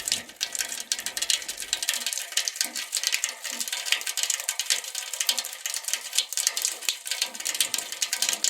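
Typewriter keys clacking in a rapid, irregular stream of sharp clicks.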